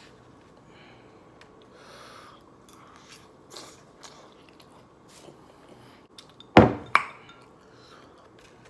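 Faint chewing, then two sharp clinks about half a second apart near the end as a glass of iced drink is set down on a wooden table.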